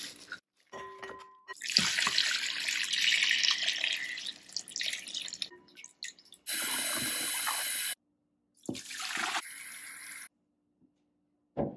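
Kitchen tap water running into a glass bowl of raw beef bones in a sink, in several separate stretches, while hands rinse and swish the bones in the water; a short knock near the end.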